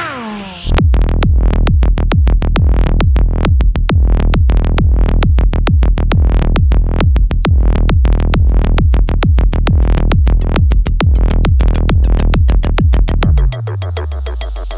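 Electronic dance music with a fast, steady drum-machine beat. A rising sweep opens it, and a bass note slides down near the end.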